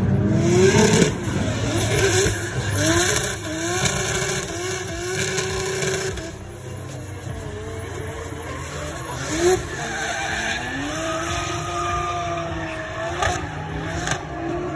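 Drift cars sliding through a corner. Engines rev in repeated quick rising sweeps over the first few seconds, then in a longer climbing rev, with tyres skidding and squealing as the cars drift.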